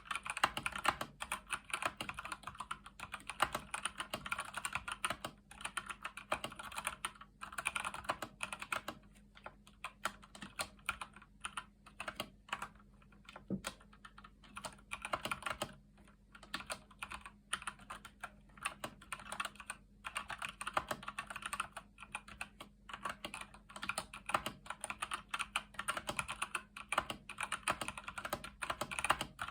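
Typing on a Keychron C1 mechanical keyboard with Gateron Brown switches: fast, irregular keystroke clacks in runs broken by short pauses, thinning out for a few seconds around the middle.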